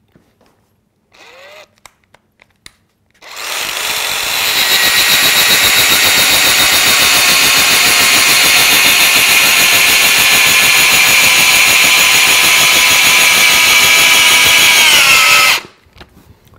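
Metabo SB 18 LTX-3 BL Q I 18-volt brushless cordless drill in first gear, driving an 8 mm by 300 mm screw into timber without a pilot hole. The motor and gearbox run with a steady whine for about twelve seconds, sag in pitch just before the end, then stop suddenly.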